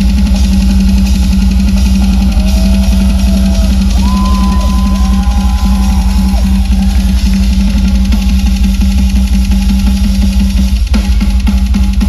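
Live metal band playing loud: a rock drum kit with fast, dense bass drum strokes over a held low note that cuts off suddenly near the end. A few gliding higher tones sound about a third of the way in.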